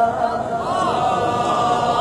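A man reciting the Qur'an in the melodic tilawah style: one long held note with curling ornamental turns around it.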